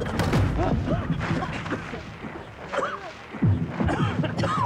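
A body falls to the ground with a thump at the very start, and several people's voices carry on around it.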